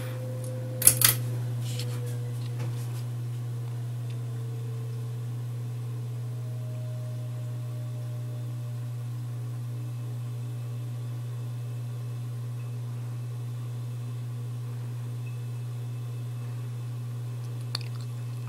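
2003 SMC 36-inch ceiling fan (model H36UL) running, its motor giving a strong steady hum with a faint whine above it that drops slightly in pitch over the first few seconds. The heavy hum is a sign of the worn motor, which the owner puts down to its cheap capacitor. Two sharp clicks come about a second in, with a lighter one near the end.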